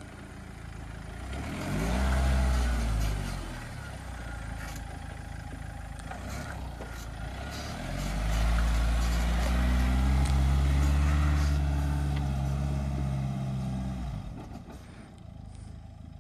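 Mahindra Thar's engine revving under load as the 4x4 climbs loose sand: a short burst about two seconds in, then a longer, louder pull through the second half that eases off near the end.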